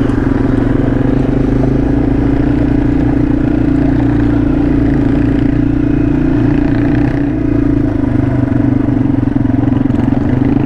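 Small single-cylinder trail motorcycle engine running at a steady cruising speed, with riding noise, its pitch holding nearly constant.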